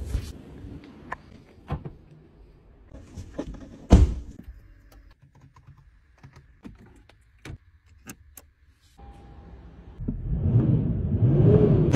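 Scattered clicks and knocks from doors and buttons being handled, with one heavy thunk about four seconds in. Near the end the Toyota LandCruiser's engine starts running and is revved, its pitch rising and falling.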